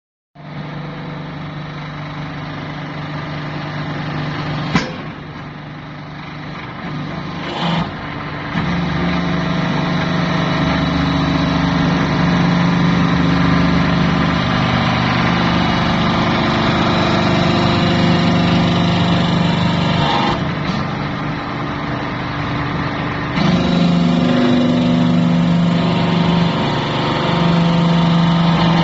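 Horizontal hydraulic metal baler running: a steady drone from its hydraulic pump and motor, which grows louder and shifts in pitch about eight seconds in, eases off a little around twenty seconds and picks up again near twenty-three seconds as the press works under load. A sharp knock comes about five seconds in and another just before eight seconds.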